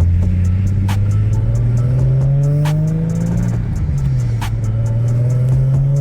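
Infiniti G37's V6 engine accelerating, its pitch rising steadily, dropping about four seconds in at a gear change, then rising again.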